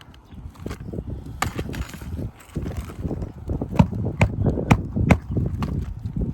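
Nails being driven: a scatter of sharp knocks over a low rumble, with a quick run of four strikes, about two a second, just past halfway.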